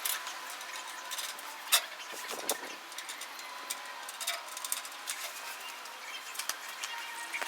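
Scattered, irregular clicks and taps of hand tools and metal parts being handled, with one sharp louder click a little under two seconds in, over a steady faint hiss.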